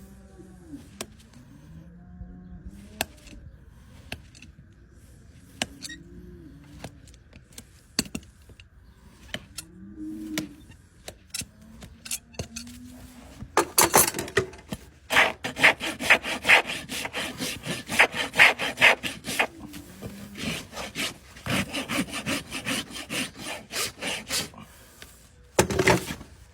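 A horse's hoof being filed with a farrier's rasp in quick, even strokes, about four a second. The strokes start about halfway in, pause briefly, and end with one louder stroke; before them there are only scattered light clicks and taps.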